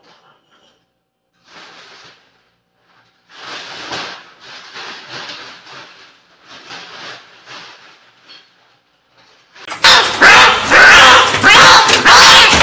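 Black plastic garbage bag rustling in a run of short bursts as it is gathered and stuffed. Nearly ten seconds in, a much louder, continuous sound cuts in abruptly and takes over.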